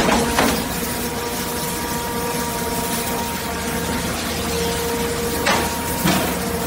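Heavy hydraulic scrap-metal machinery running steadily: diesel engine and hydraulic pump hum with a constant whine, and short metal clanks near the start and twice near the end as scrap rebar is handled.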